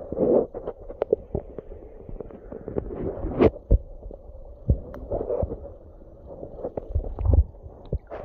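Muffled underwater knocks and water movement picked up by a phone's microphone submerged in a water barrel, with irregular dull thuds over a low rumble as the phone moves in the water and bumps against things.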